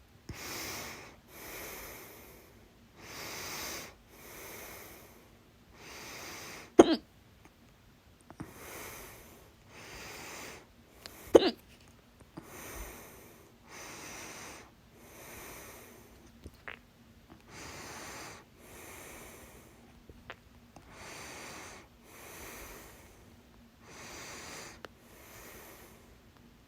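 A woman's loud hiccups: two sharp, loud hiccups about 7 and 11 seconds in, between steady audible breaths about once a second.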